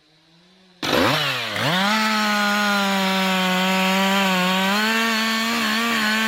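Two-stroke chainsaw engine, faint at first, then suddenly loud about a second in. Its pitch dips briefly, then holds steady at high revs.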